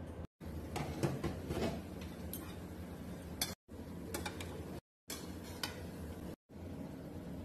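A spatula scooping rice from a metal pan, with light scrapes and sharp clinks of the spatula against the pan, over a low steady hum. The sound drops out briefly several times.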